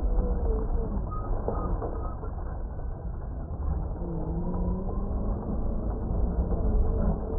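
Traxxas X-Maxx RC monster truck's electric brushless motor whining under throttle, its pitch rising and falling, as the big tyres spin and churn through loose dirt.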